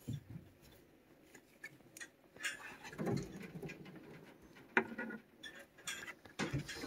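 Faint, scattered clicks and light scrapes from a plastic back-scratcher rake being rubbed over a cat's fur, with a few short, slightly louder low sounds about three and five seconds in.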